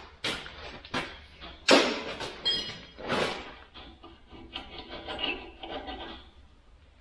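Sharp knocks and clatter of steel parts and tools being handled on a steel bale handler frame, the loudest knock a little under two seconds in and a short metallic ring just after it, followed by quieter rattling and scraping.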